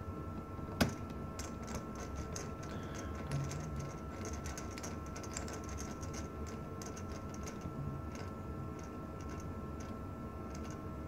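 Small, irregular clicks and light taps of hands and a small screwdriver working on a netbook's plastic case and screws, with one sharper click about a second in.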